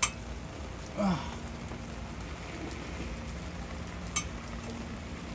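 Steady rain falling, with two sharp clicks about four seconds apart and a short sound falling in pitch about a second in.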